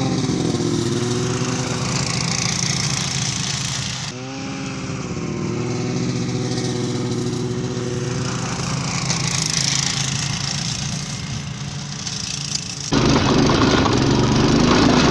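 Snowmobile engine running at a distance, its pitch dipping about four seconds in and then climbing again. Near the end it cuts to a louder, rougher engine sound with rushing noise, heard from on board a snowmobile moving over snow.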